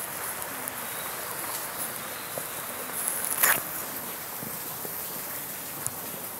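Steady high insect chirring over an even background hiss, with one brief louder scuff about three and a half seconds in.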